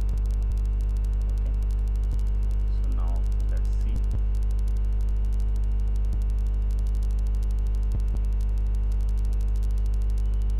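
Steady electrical mains hum with a low buzz of overtones, picked up on the recording, with a few faint ticks at irregular intervals.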